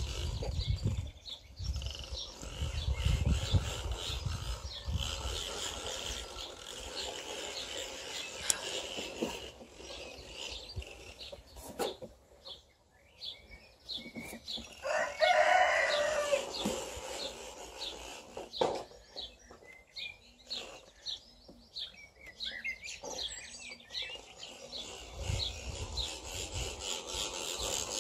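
Small garden birds chirping throughout, with a rooster crowing once about halfway through.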